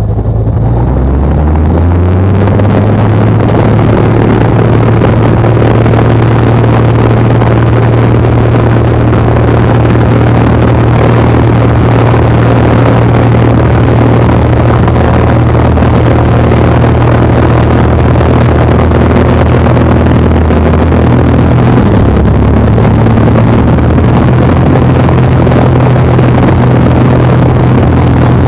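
Tow plane's piston engine, an L-19 Bird Dog's six-cylinder Continental, run up to takeoff power: it rises in pitch over the first couple of seconds, then holds a steady, loud drone through the takeoff roll, with a slight change in pitch about three-quarters of the way through.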